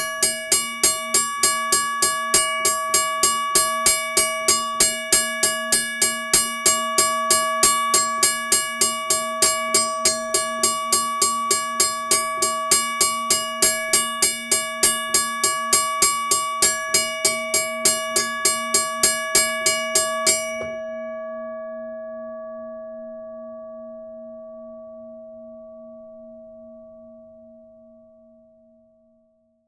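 Australian level crossing bell ringing with rapid, even strikes, about three and a half a second. About 21 seconds in the striking stops and the bell's tone rings on, slowly dying away.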